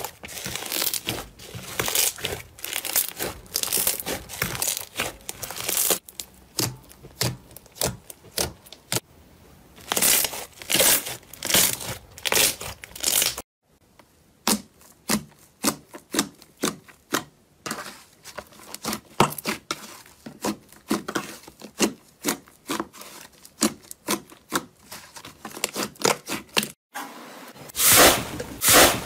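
Slime being squeezed, stretched and poked by hand, giving dense runs of wet crackling and popping clicks. The sound cuts off abruptly about 13 seconds in and again near the end as one slime clip gives way to the next.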